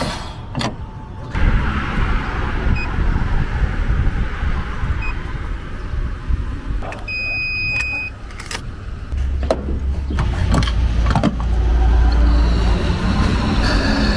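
Small car with a 900 cc petrol engine running, its low rumble growing louder in the second half. A few sharp clicks come right at the start, and a single electronic beep lasting about a second sounds about seven seconds in.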